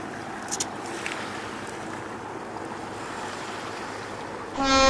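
Steady wind and water ambience with wind on the microphone, and a brief faint click about half a second in. Near the end a diesel locomotive's horn starts suddenly and loudly, a chord of several tones.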